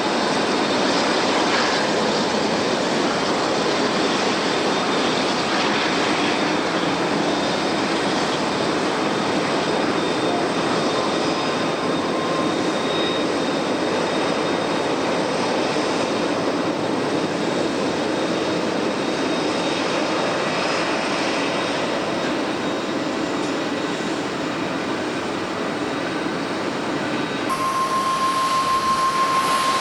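Jet engines of an ANA Airbus A321neo airliner on its landing approach: a steady, even rush of engine noise. Near the end the sound cuts to a different one with a steady high tone.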